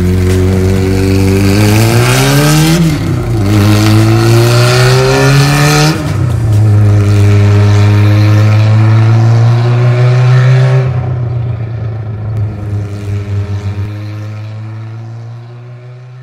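An engine running and revving. Its pitch climbs, drops back twice, climbs again, then fades away over the last few seconds.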